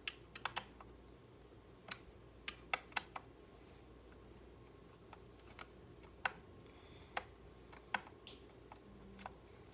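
Irregular sharp clicks and taps of hard plastic parts being handled while a Dirt Devil hand vacuum is taken apart, roughly one or two a second, faint and scattered.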